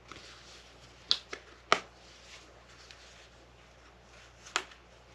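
Four short, sharp clicks from handling tools at a jig-tying vise: three close together about a second in, one more near the end.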